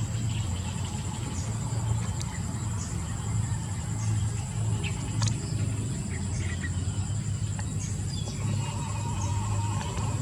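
A steady high-pitched buzz over a low steady hum, with a few faint clicks.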